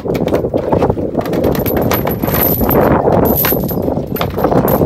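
Anchor chain clinking and knocking irregularly against the boat's gunwale as it is hauled up hand over hand, over a steady low rushing noise.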